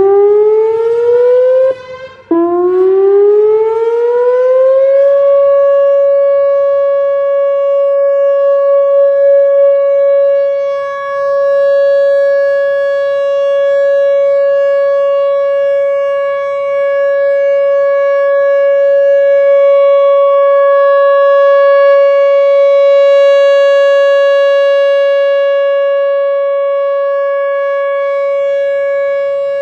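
Whelen WPS-4004 electronic outdoor warning siren sounding its Full Alert steady tone. The tone rises in pitch, breaks off briefly about two seconds in, rises again and then holds a steady pitch. The uploader found it not very loud and believes it is running on only two of its speaker drivers.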